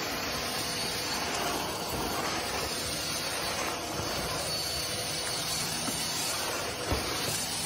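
Stick vacuum cleaner running steadily, its motor giving a faint high whine over the rush of air. A soft knock comes near the end.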